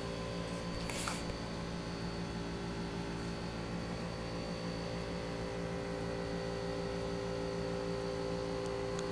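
Steady electrical hum made of several tones, with a faint high whine, from the high-voltage supply lighting a krypton-filled luminous glass sculpture. A brief hiss comes about a second in.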